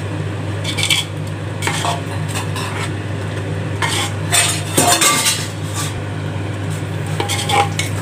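A long metal spoon scraping and clinking against the sides of a large aluminium pot as a thick gravy is stirred and sautéed. The scrapes are irregular and busiest around the middle, over a steady low hum.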